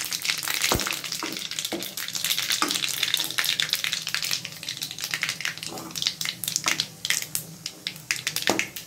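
Panch phoron seeds and two dried red chillies sizzling and crackling in hot oil in an aluminium kadhai, with sharp pops and a slotted spatula stirring now and then. The crackle is thickest at first and thins out over the last few seconds.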